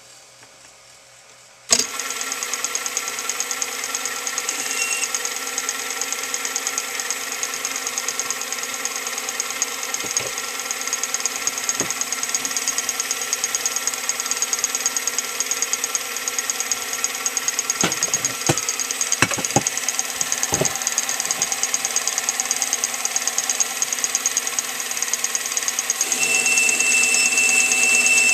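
Small benchtop metal lathe switched on about two seconds in, then running steadily with a motor whine while a boring bar cuts the internal bore of an aluminium blank. A few sharp clicks come in the middle, and near the end the sound gets louder with a thin high tone over it.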